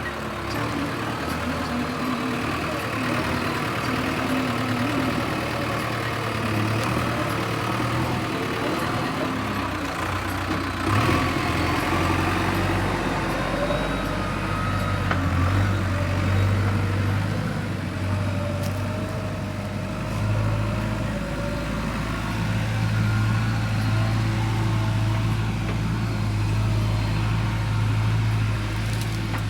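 Diesel engine of a JCB backhoe loader running steadily while working, its low engine note getting heavier about a third of the way in and again later.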